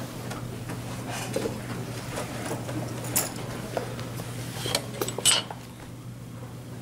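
Steady low room hum with scattered light clicks and clinks, the sharpest one about three seconds in and a quick cluster around five seconds in.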